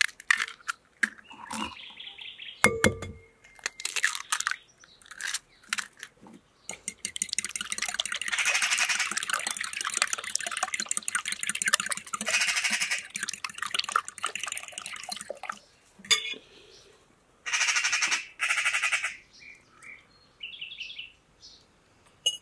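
A fork whisking raw eggs in a glass bowl: rapid scraping and clinking strokes for several seconds in the middle, with scattered light clicks of the fork against the glass before and after.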